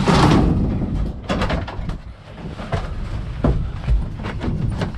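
A scraping rush about a second long, then a string of knocks and thuds as a bulky scrap item is wrestled into the back of a van.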